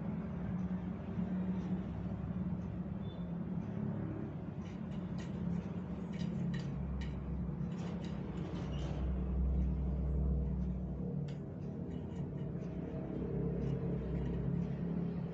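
Steady low hum with a deeper rumble swelling in the middle. Scattered light clicks and taps from a kitten's claws and paws on a tiled floor as it plays.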